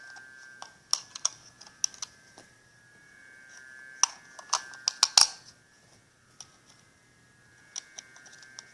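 Small plastic clicks and knocks as AAA batteries are pressed into a plastic alarm clock's battery compartment and handled. The clicks come irregularly, with a quick, louder cluster about four to five seconds in.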